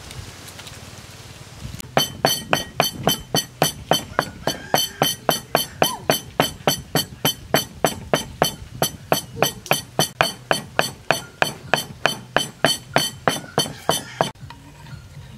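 Wooden pestle pounding in a mortar: a steady run of sharp knocks, roughly three and a half a second, starting about two seconds in and stopping shortly before the end.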